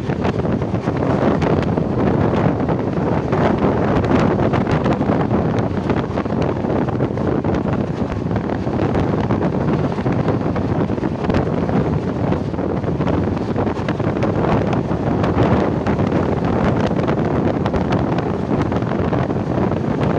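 Wind buffeting the microphone: a steady, loud rushing noise that does not let up.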